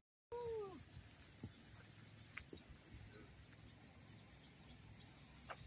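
Faint outdoor ambience of insects and birds: a steady high chirping, with one short falling call just after the start.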